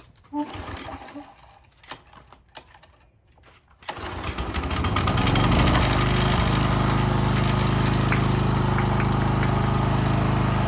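Gas pressure washer's small single-cylinder engine starting about four seconds in, after a few faint clicks, and settling into a steady run; its camshaft and governor have just been replaced.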